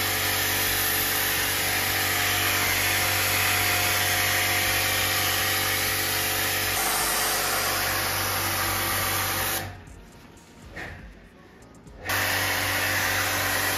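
Electric high-pressure water washer motor running with a steady whine and hum while its jet sprays water onto the indoor coil of a split air conditioner. It stops for about two seconds near the end, then starts again.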